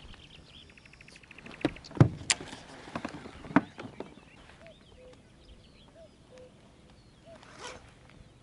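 Spinning fishing rod and reel handled in an inflatable boat: a quick run of reel clicks, then a few sharp knocks and thumps of tackle about two to four seconds in. Faint short chirps repeat through the second half.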